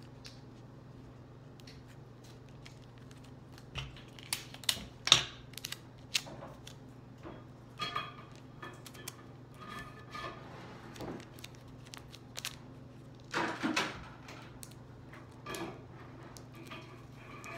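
Paper and clear sticky tape being handled and pressed together: scattered crinkles and small clicks, with louder crackling bursts about four to five seconds in and again near fourteen seconds. A steady low hum runs underneath.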